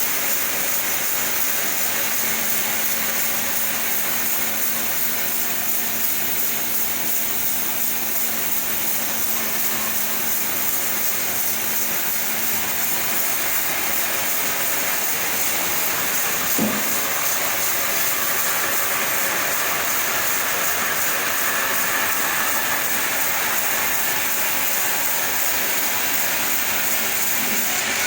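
Chainsaw running steadily under load as it rips lengthwise through a sapodilla log, with one brief knock about seventeen seconds in.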